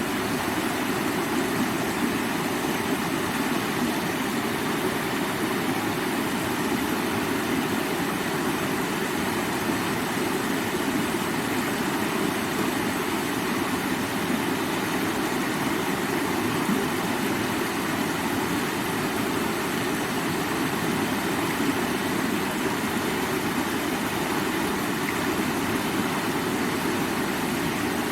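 Steady, even rush of flowing river water, deepest in tone, with no breaks or separate drops.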